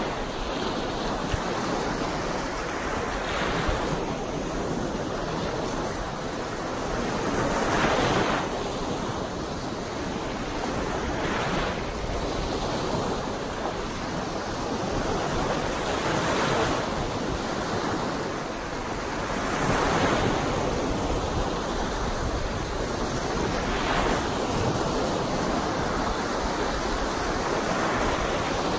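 Choppy Lake Superior waves breaking and washing up the shallows onto a sandy shore: a steady rush that swells as a new wave breaks about every four seconds. Wind gusts over the microphone add a low rumble.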